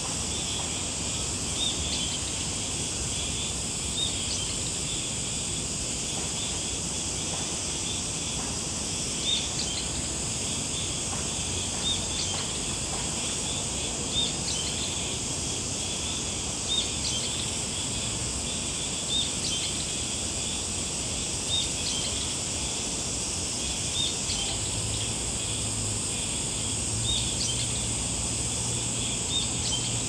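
Summer insect chorus: a steady high-pitched drone, with a short chirp repeating about every two to three seconds.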